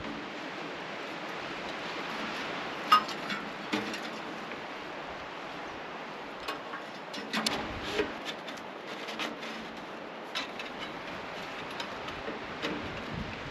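Scattered knocks and clinks of camp gear being handled over a steady hiss, the sharpest about three seconds in and a cluster of them around seven to eight seconds.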